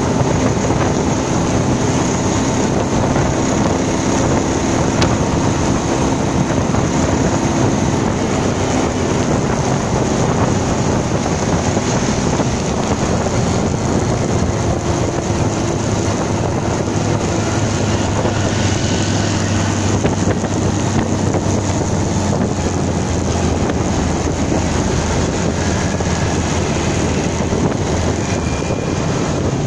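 Steady wind rush and wet road hiss on the microphone of a Bajaj Pulsar 220 motorcycle riding in the rain, with the bike's single-cylinder engine running faintly beneath. The bike slows in the second half.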